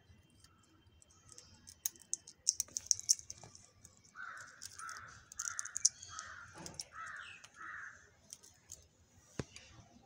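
A green parakeet gives six short calls in an even series, between about four and eight seconds in. Before them comes a run of sharp clicks and rattles as it works its beak on a beaded cloth tassel.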